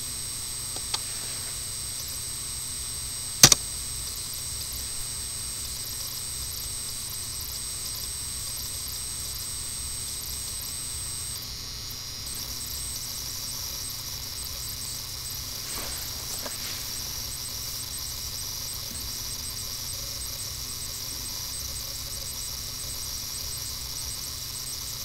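Steady background hiss and electrical hum, with a thin high whine in it that stops about eleven seconds in. About three and a half seconds in comes one sharp, loud click of a computer key or mouse button, with a fainter click just before a second in.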